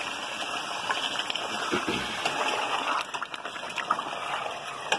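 Yogurt-marinated chicken frying in hot oil in a steel pot, a steady sizzle, while a wooden spatula stirring it knocks against the pot a few times. The sizzle eases slightly about three seconds in.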